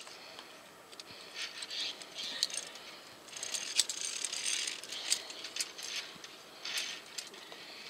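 Via ferrata climbing gear in use: metal carabiners clicking and scraping against the steel cable and rungs, with rustling of clothing and pack, in irregular bursts and sharp clicks.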